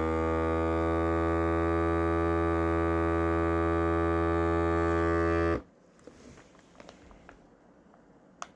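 Vacuum sealer's pump motor running with a steady hum, cutting off suddenly about five and a half seconds in, followed by a few faint clicks.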